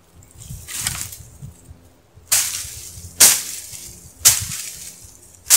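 Brush and branches being hacked and broken away by hand: four sharp cracks, each with a rustle of leaves, about a second apart in the second half, after a softer rustle about a second in.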